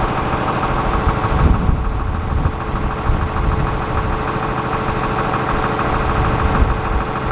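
Farm tractor's engine idling steadily.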